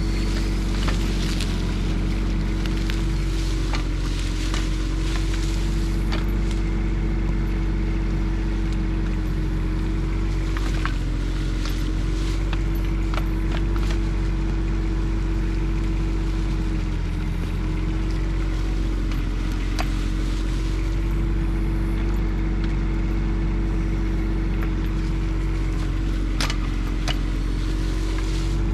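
Bobcat E10 mini excavator's diesel engine running steadily as the arm and bucket dig, its pitch dipping briefly now and then. Scattered knocks and scrapes come from the bucket working the dirt.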